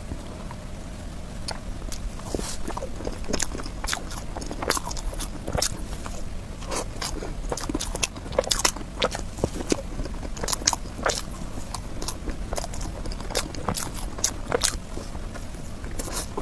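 Close-up eating sounds of someone chewing soft cake: irregular chewing with quick mouth clicks and smacks.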